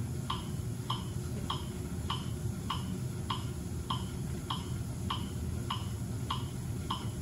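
Metronome clicking steadily about 100 times a minute, one click per pedal stroke to pace a 50 rpm cadence, over the low steady whir of a Monark cycle ergometer's flywheel being pedaled.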